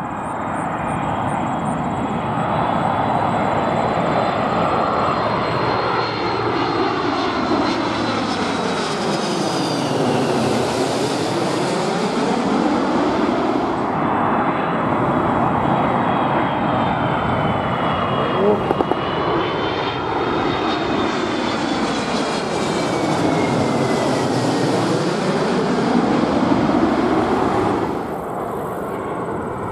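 Two Airbus A330 twin-jet airliners on landing approach pass low overhead one after the other, each a steady jet-engine roar with a whine that falls in pitch and a sweeping, phasing sound as it goes over. The second takes over about halfway through. A quieter Boeing 737-700 on approach comes in near the end.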